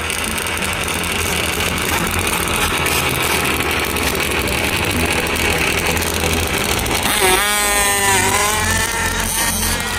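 Radio-controlled drag car running, over a steady loud din, with a motor whine that rises and then falls about seven seconds in.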